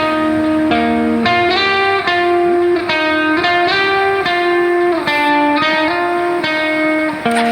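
Background music: a guitar track playing a melody of plucked, sustained notes that change about every half second.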